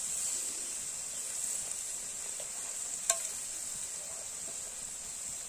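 Soya chunk curry sizzling in a metal kadai just after brewed tea has been poured in, a steady hiss, while a metal spatula stirs it. A single sharp tap about three seconds in.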